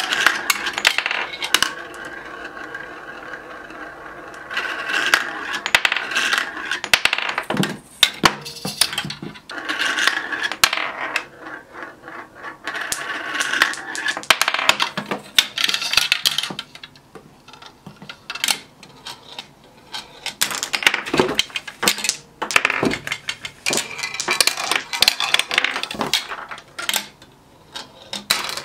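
Marbles rolling along plastic marble-run tracks and chutes, in spells of steady rolling broken by many sharp clicks and clattering knocks as pieces strike and trip one another.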